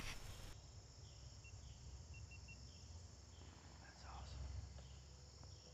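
Faint, steady chorus of crickets and other insects, with a few short high chirps and a faint low rumble of breeze, after a brief rustle at the start.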